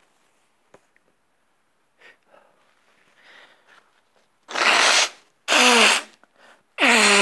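A man sneezing three times in quick succession after a few seconds of faint, breathy build-up. Each sneeze is a loud, explosive burst that ends in a falling voiced cry.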